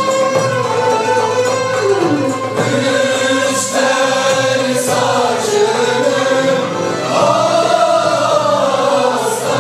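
Mixed choir singing a Turkish art music (Türk sanat müziği) song, accompanied by a small ensemble of violins, cello, kanun and frame drum.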